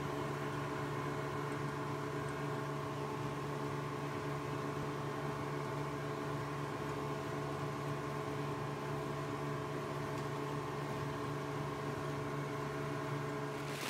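Boat's outboard engine running at a steady speed, an even hum with a strong low tone and no change in pitch.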